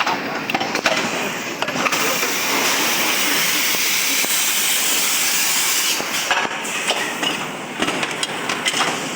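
Bottle moulding machine at work: a long hiss of air from about two to six seconds in, with sharp mechanical clicks and knocks around it.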